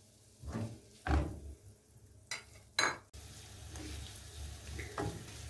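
Wooden spoon stirring and scraping mushrooms around a nonstick frying pan in oil and tomato paste, in a few separate strokes. From about three seconds in the mushrooms sizzle steadily as they sauté.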